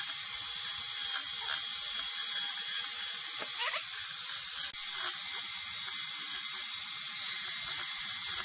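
Small chainsaw running and cutting into a wooden log, sped up to double speed, giving a steady high-pitched hiss and whine. The sound breaks off for an instant about four and a half seconds in.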